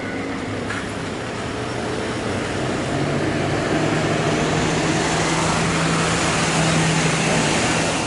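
A large vehicle passing close by: a rush of noise with a steady low hum that builds through the middle and falls away near the end.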